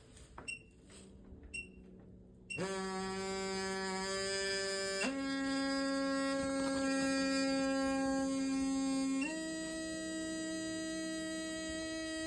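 Tiny vibration motor in a Starline alarm key fob, run from a bench power supply, starting up with a steady buzzing whine about two and a half seconds in after a few faint clicks. Its pitch jumps up twice, about 5 and 9 seconds in, as the motor speeds up.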